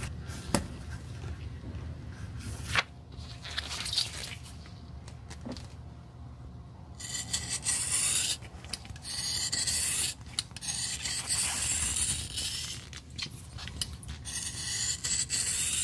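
Large scissors cutting through a sheet of red replacement-sole material in long cutting strokes with short gaps, starting about seven seconds in. Before that there is quieter scratching with a few sharp clicks, as the sole outline is traced onto the sheet.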